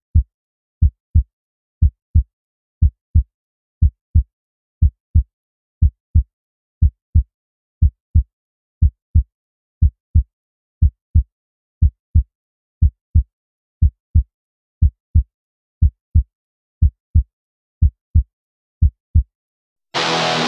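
Heartbeat sound effect: deep double thumps, lub-dub, about once a second, with dead silence between. Heavy rock music cuts in near the end.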